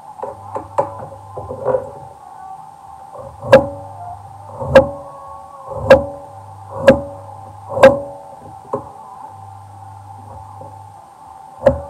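Chef's knife cutting through ginger root and striking a plastic cutting board: a few light cuts, then five sharp knocks about a second apart, and one more near the end. A steady hum runs underneath.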